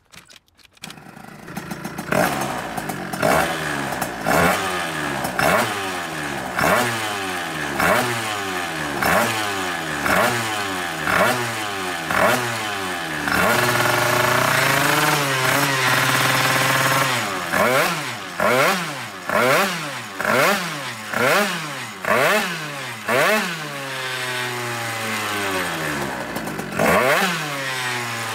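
Beta Ark scooter's Minarelli two-stroke engine, with a Malossi 70 cc Testarossa cylinder and Malossi exhaust, starting up and then being blipped on the throttle on its stand. Sharp revs come about once a second and fall back to idle, with one rev held for a few seconds midway, as the carburettor setup is checked.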